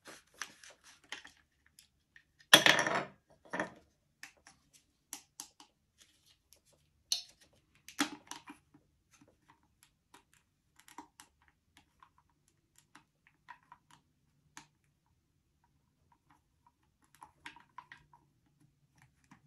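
Small clicks, taps and light rattles of 500 series telephone handset parts and the handset cord's metal strain-relief sleeve being handled and fitted, with a louder clatter about two and a half seconds in and another sharp click about eight seconds in.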